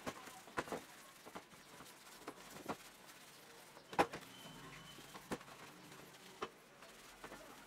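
A child's bicycle frame being scrubbed by hand in a plastic tray of soapy water: irregular splashes and light knocks of the frame against the tray, the loudest about four seconds in as the frame is lifted and turned.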